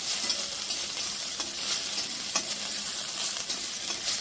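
Fenugreek seeds and leaves sizzling in hot oil in a steel kadhai for a tadka, stirred with a metal spatula: a steady high hiss with scattered small ticks and scrapes.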